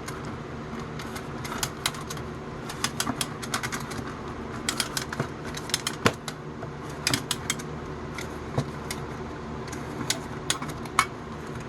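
Clockwork spring of a vintage Japanese tin wind-up ray gun being wound by its key, the ratchet clicking in irregular spurts of quick clicks.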